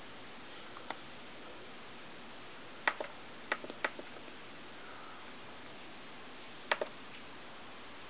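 Short, sharp clicks from a laptop's buttons while on-screen settings are clicked through. There is one click about a second in, a quick cluster of about five clicks between three and four seconds in, and a close pair near seven seconds.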